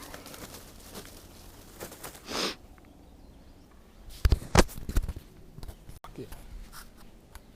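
Rustling in dry leaves and a short hiss, then a cluster of loud sharp thumps a little after four seconds in: a shotgun shot at a turkey and the bird flopping.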